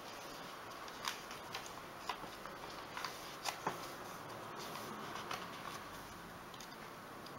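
Thick paper pages of a handmade junk journal being turned and handled by hand: scattered soft rustles and light taps, a few sharper ones in the first half, over a faint steady hiss.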